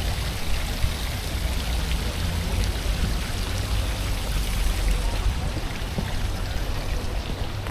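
Water jets from stone dragon-head spouts splashing steadily into a lotus pond, with a low rumble underneath.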